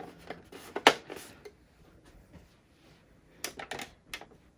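Handling noise of hard plastic toy parts: sharp clicks and taps, the loudest about a second in and a quick cluster of smaller ones near the end.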